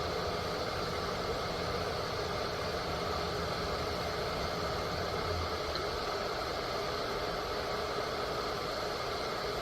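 Peach Street 1500 W borosilicate-glass electric kettle heating water shortly after being switched on: a steady hiss, well before the boil.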